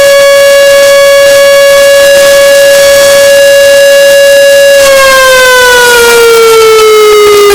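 Whelen WPS 2905 electronic outdoor warning siren sounding a very loud steady alert tone. It holds one pitch for about five seconds, then slides slowly down.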